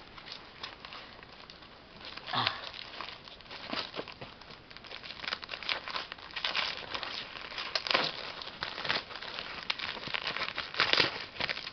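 Packaging crinkling and tearing as it is cut open with scissors and handled, in irregular crackles that grow busier after about five seconds.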